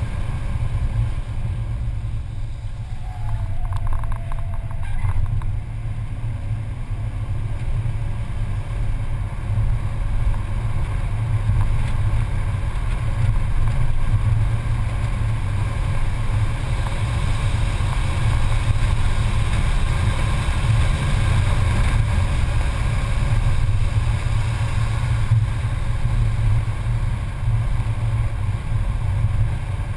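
Mercedes-Benz C280 engine running at track speed, heard from inside the cabin as a steady low drone mixed with road and wind noise. It gets somewhat louder in the second half.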